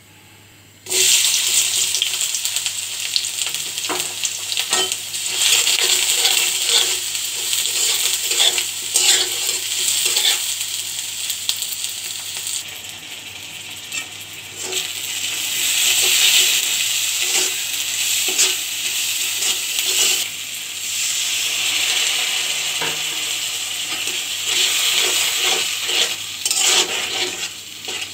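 Sliced onions frying in hot mustard oil in a metal karai: a loud sizzle that starts suddenly about a second in and runs on, swelling and easing, with a spatula stirring and clicking against the pan.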